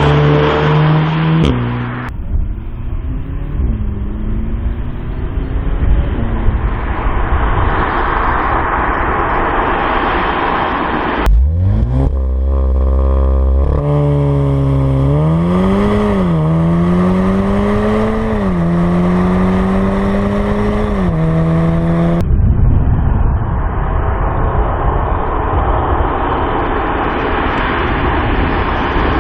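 Volkswagen Golf VII R's turbocharged 2.0 TSI four-cylinder accelerating hard, with the exhaust note loud. Through the middle, the engine pitch climbs and drops back sharply three times at quick DSG upshifts, about every two to three seconds. Before and after, there is a steady roar of the car running at speed without a clear engine tone.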